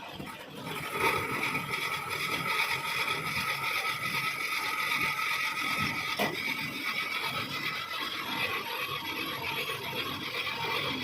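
Metal lathe running while a threading tool cuts a thread in a cast iron nut: a steady high-pitched ringing tone with scraping noise that gets louder about a second in, and one sharp click a little past the middle.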